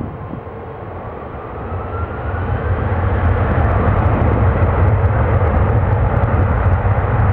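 Airbus A330-300's Rolls-Royce Trent 700 turbofans spooling up to takeoff thrust: a faint rising whine over the first few seconds, then a loud, steady low rumble as the takeoff roll gets under way.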